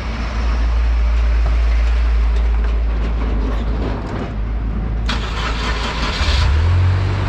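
GAZelle 3302's ZMZ-405 four-cylinder petrol engine running, checked for hydraulic lifter knock after an oil flush with a steady low hum. About five seconds in, an angle grinder cuts nearby for a second and a half.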